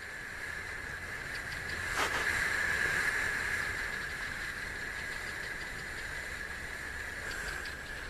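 Puff adder hissing in defence, the hiss swelling about two seconds in and easing off over the next couple of seconds. A steady high-pitched tone runs underneath.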